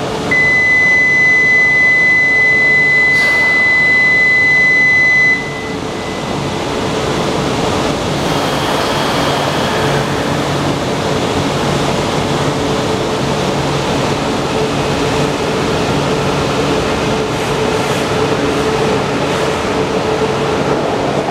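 A steady high electronic tone sounds for about five seconds, then stops. A low, steady hum from an E4-series MAX Toki Shinkansen at an underground platform runs underneath and carries on afterwards.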